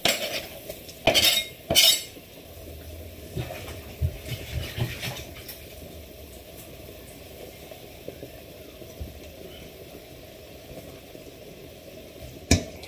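Raw bacon tipped from a plastic chopping board into a hot frying pan of chicken juices: a few sharp clatters of board and utensil against the pan in the first two seconds, then a steady sizzle with scattered small knocks, and another clatter near the end.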